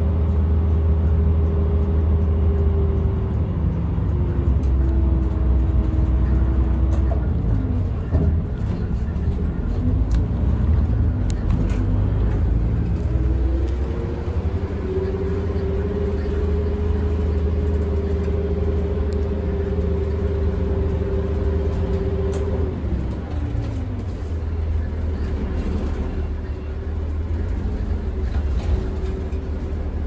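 Route bus engine running with a heavy low rumble, heard from inside the bus. Its pitch falls about 3 seconds in and again around 7 to 9 seconds in, climbs back about 13 seconds in, holds steady, then drops again near 23 seconds in.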